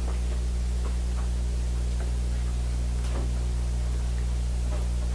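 Steady low electrical hum with a hiss, and a few faint, brief sounds of people stirring in the room.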